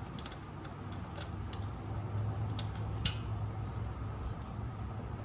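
A few light, scattered metallic clicks and ticks of hand tools and parts being handled while the starter is worked free of the motorcycle's engine, over a steady low hum.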